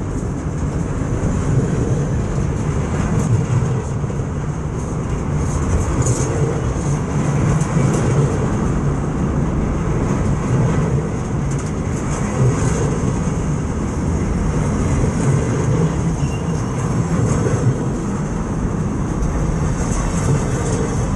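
Freight wagons rolling directly over the listening point between the rails: a loud, steady rumble of steel wheels on rail, with frequent small clicks and rattles from the running gear.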